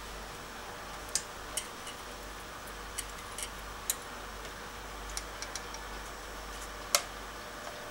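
Irregular sharp clicks and taps as hands handle the wire and the metal guide and feed rollers of an automatic wire cutting and stripping machine, with the loudest click about seven seconds in, over a steady low hum.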